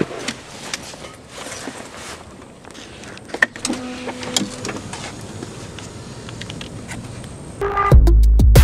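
Scattered clicks and handling sounds of someone getting out of a car, with a short steady hum about halfway through. Near the end, loud electronic music with a heavy beat starts abruptly.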